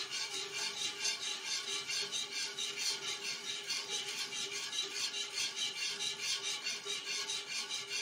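Wire whisk scraping and swishing against the bottom of a frying pan through a thick milk-powder and milk mixture, in a quick even rhythm of about three to four strokes a second. The mixture is being stirred constantly over medium heat so that no lumps form.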